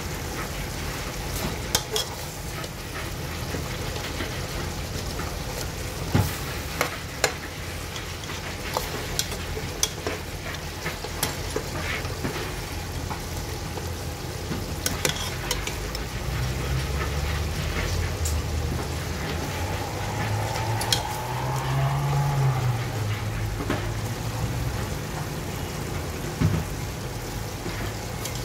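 A metal ladle stirring ginataang laing in an aluminium pot: scattered sharp clinks and scrapes of the ladle against the pot over the steady sound of the coconut-milk sauce simmering. A low rumble comes in about halfway through.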